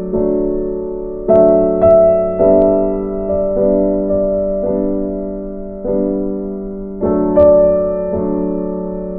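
Background music: slow piano chords struck every second or so, each ringing and fading.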